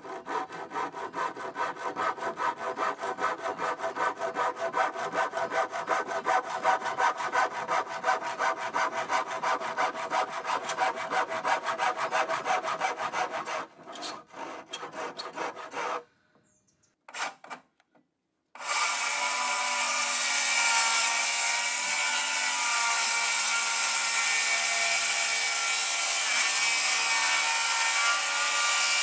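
Hand saw cutting through a wooden board in quick, even back-and-forth strokes for about fourteen seconds. After a short pause, a handheld power tool starts and runs steadily on a timber beam.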